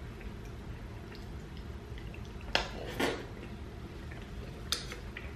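Fork clinking and scraping on a plate of food, with quiet chewing. Sharp clicks come about two and a half and three seconds in, and another near the end.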